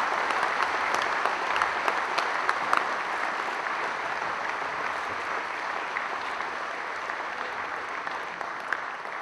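Audience applauding: a dense, steady crowd of clapping hands that slowly dies down over the few seconds.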